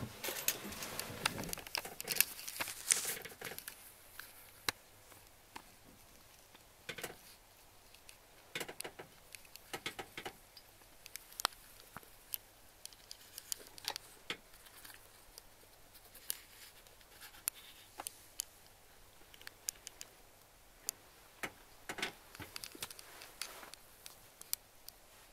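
Handling noise from a handheld camera being moved about inside a truck cab: rustling for the first three seconds or so, then scattered sharp clicks and taps.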